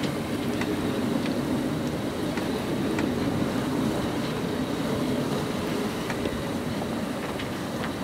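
Wind and sea rushing past a sailing yacht under way in choppy water, with waves slapping along the hull. A steady rushing noise with a few faint ticks through it.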